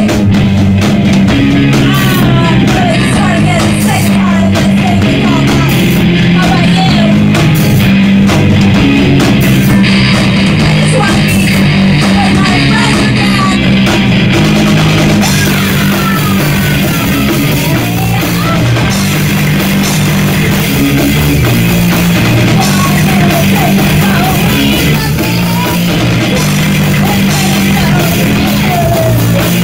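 Punk band playing loud and without a break: distorted electric guitars, a drum kit with cymbals, and a singer singing and yelling into a microphone.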